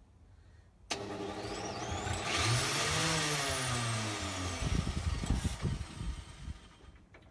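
A homemade electric starter, an angle grinder belted to a Lister D single-cylinder stationary engine, starts about a second in with a whine that climbs in pitch as it turns the engine over, then falls away. Irregular low thumping follows as the drive belt comes off, and the engine does not catch.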